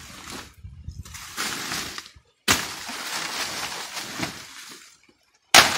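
Brush hook (foice) hacking into a dry banana pseudostem killed by Panama disease, a crunching, cracking noise in a few spells with sudden starts and a sharp, loud strike near the end. The dried-out stem cuts like wood.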